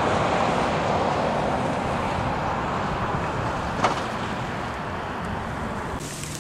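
Steady rushing outdoor noise with one short click nearly four seconds in; it eases off slightly toward the end.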